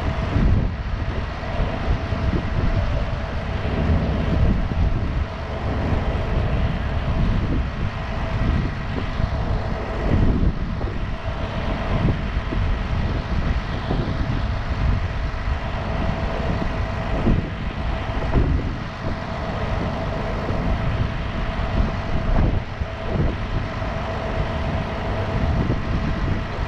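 Rollback tow truck's diesel engine idling steadily, with a constant whine over the low rumble.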